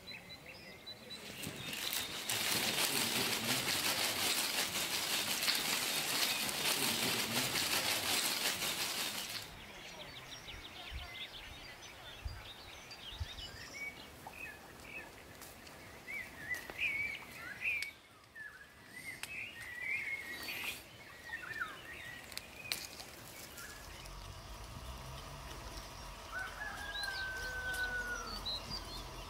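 A loud, even rushing noise for the first eight seconds or so, then birds chirping and calling, with short gliding whistled notes scattered through the rest.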